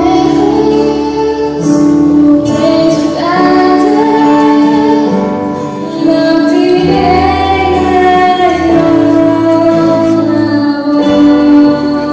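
Young girls singing a song over instrumental backing music.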